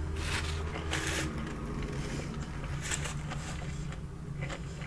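A few short crinkly rustles during a fast-food meal, one about half a second in, a longer one around a second, and more near three and four and a half seconds, over a steady low hum.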